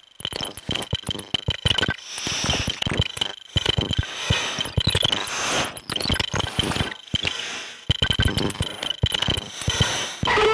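Experimental noise from a Eurorack modular synth (Synthesis Technology Morphing Terrarium) run through Hologram Dream Sequence and Infinite Jets pedals and an Eventide Space reverb. It is a dense, stuttering stream of irregular clicks and crackles with a thin high whistle over it, broken by a few brief gaps.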